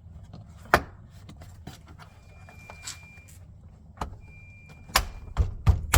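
Plastic window-switch panel being pressed and snapped back into a pickup's door trim: sharp clicks and knocks, one about a second in and several in quick succession near the end. A faint thin high tone sounds twice in the middle.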